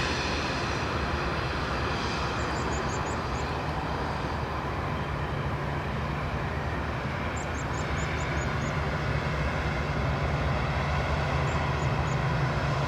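Jet airliner engines running steadily: a low hum under a broad rush that grows slightly louder towards the end.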